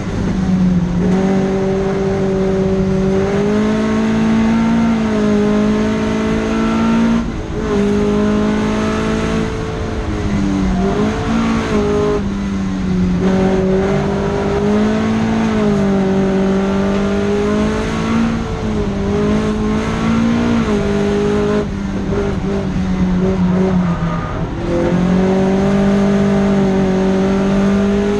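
Datsun Fairlady 2000 (SR311) roadster's engine running hard on track, its note holding and rising under throttle with several short breaks and drops in pitch as gears are changed.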